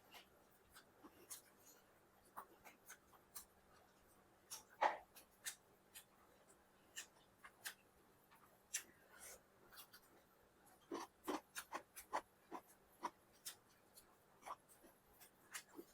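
Quiet eating sounds from someone eating chicken biryani: scattered small clicks and smacks of chewing and handling the food, busiest about eleven seconds in.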